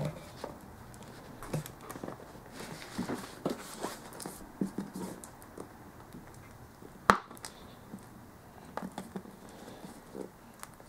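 Rubber intake duct being worked by hand into the plastic airbox of a Keeway RKS125 motorcycle: faint rubbing and handling with scattered light knocks, and one sharp click about seven seconds in.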